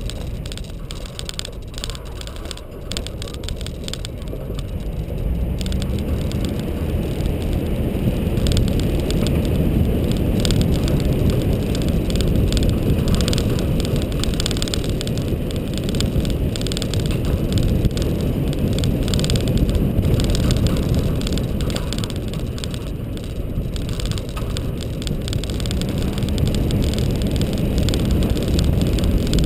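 Nissan GU Patrol's TB45 4.5-litre straight-six petrol engine pulling the vehicle along a dirt road, with tyre and wind rumble. The engine note rises as it picks up speed a few seconds in and again near the end, easing off briefly in between.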